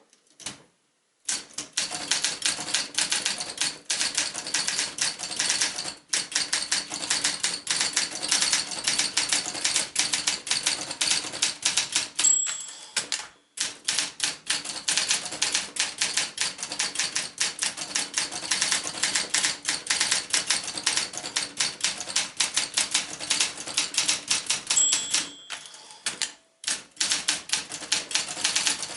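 Olympia SM9 manual portable typewriter being typed on quickly, a dense run of keystrokes. Twice the margin bell rings briefly, each time just before a short pause in the typing.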